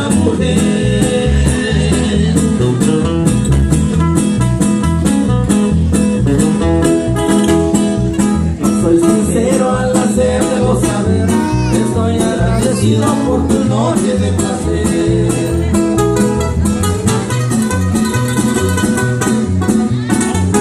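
Live band playing amplified: acoustic guitars and electric bass over drums with a steady beat, with singing.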